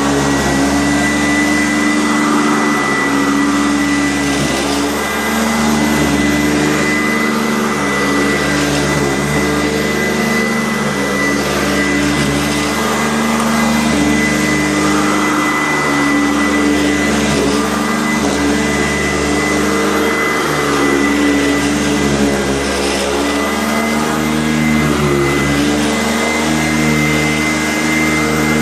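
Kent EUROCLEAN upright vacuum cleaner running steadily, with a thin constant high whine over its motor hum. The motor's pitch shifts slightly up and down now and then.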